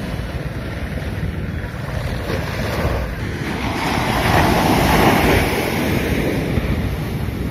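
Small sea waves breaking and washing up a sandy beach. One wash swells up a few seconds in and is the loudest part, over a steady low rumble of wind on the microphone.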